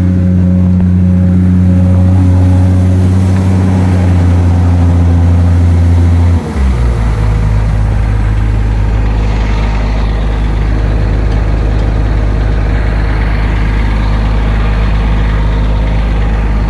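Komatsu PC200 excavator's diesel engine running at a high, steady speed, then about six and a half seconds in dropping abruptly to a lower speed and running on steadily.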